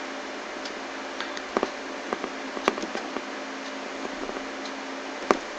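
Scattered sharp clicks of a computer mouse and keyboard over a steady background hiss.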